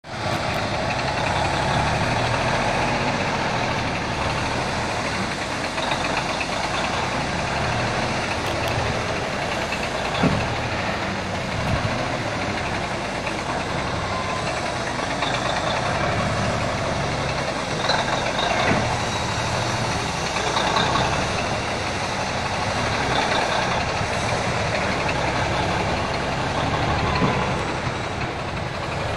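Diesel engine of a semi-truck loaded with wood chips, running steadily as the truck works slowly through deep mud, with a sharp knock about ten seconds in.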